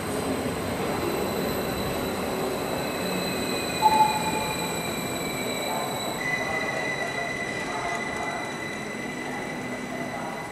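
Stadler KISS double-deck electric multiple unit running along the platform track, a steady rumble under several thin high-pitched whines and wheel squeal, one of them gliding down in pitch. A brief, louder tone sounds about four seconds in.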